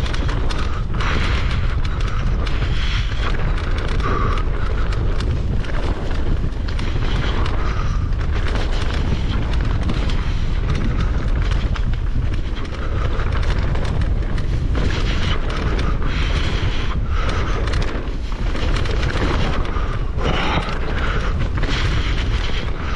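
Wind buffeting the microphone of a mountain bike riding down a forest trail, with frequent knocks and rattles as the bike runs over rough ground.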